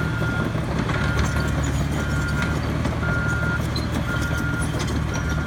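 Back-up alarm on an earth-moving machine beeping about once a second, each beep about half a second long, over the steady low running of its engine: the machine is reversing while back-dragging the graded clay.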